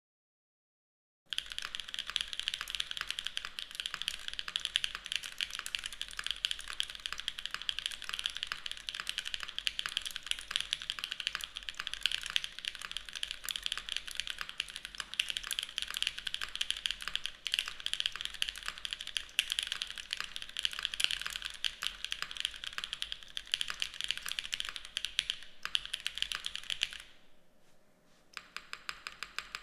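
Continuous fast typing on a mechanical keyboard with Cherry Hyper Glide Black linear switches in an aluminum plate, O-ring mounted: a dense run of sharp key clacks that starts about a second in, with a brief lull and a few last keystrokes near the end.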